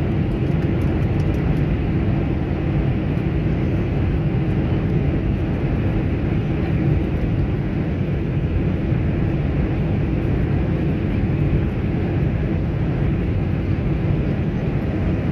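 Steady low rumble of an airliner's engines and rushing airflow heard inside the passenger cabin, even and unchanging throughout.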